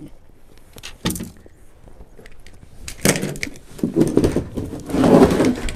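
Gear being handled in a pickup truck bed: a few clicks and a knock, then about three seconds of scraping and rustling as a plastic storage container is dragged out across the bed.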